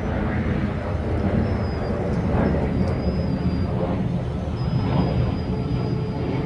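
Vacuum cleaner motor running steadily, mostly a low rumble with faint high whining tones and a couple of swells in level.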